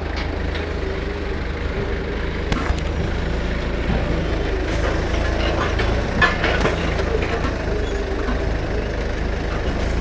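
Forklift running as it carries pallets into a truck trailer: a steady low motor hum with a few short knocks and clunks, the clearest about two and a half seconds in and again around six seconds.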